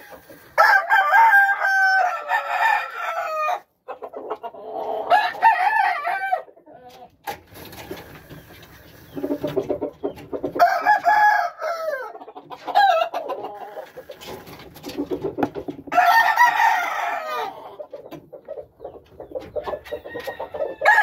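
Game roosters crowing, four long crows a few seconds apart.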